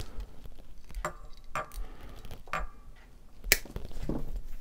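About five light, sharp clicks and taps from hookup wire being handled against a guitar body at a workbench, the loudest about three and a half seconds in.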